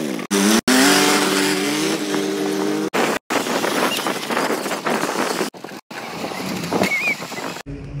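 A motor vehicle engine, its pitch dropping and then climbing to hold steady under heavy rushing noise. Several abrupt silent dropouts break it, and near the end it gives way to a quieter low hum.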